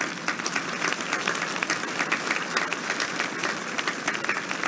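A large audience applauding: many hands clapping in a dense, steady patter.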